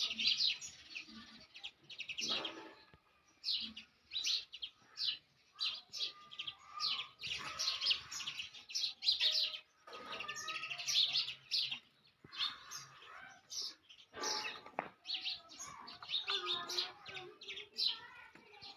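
House sparrows chirping, many short high chirps in quick clusters with brief pauses between them.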